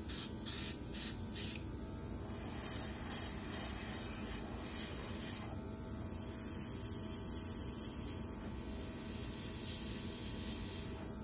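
Makeup airbrush spraying highlighter in short hissing puffs of air, about two or three a second, for the first second and a half, then a steady low hiss of air for the rest.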